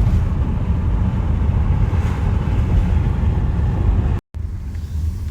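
Car driving on newly fitted summer tires: a steady low road and engine rumble heard from inside the cabin. It cuts out briefly about four seconds in and comes back a little quieter.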